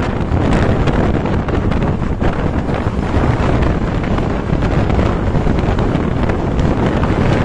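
Heavy wind buffeting the microphone over the rumble of passing road traffic. It is a steady, loud noise with no horn tune standing out.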